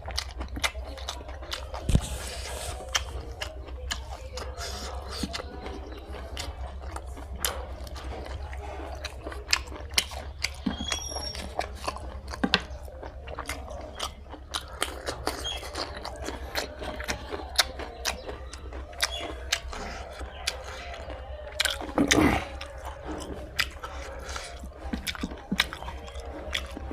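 Close-miked chewing of pork fry and rice, with many irregular sharp wet mouth clicks. One louder, longer mouth sound comes about three-quarters of the way through, over a steady low hum.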